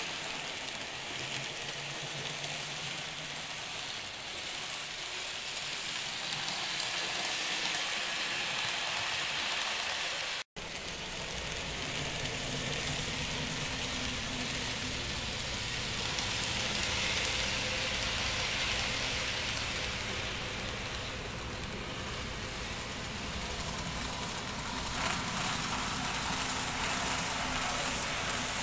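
Model trains running on the layout's track: a steady rushing whirr of small motors and wheels on rails. The sound cuts out briefly about ten seconds in, and after that a low steady hum runs under the whirr.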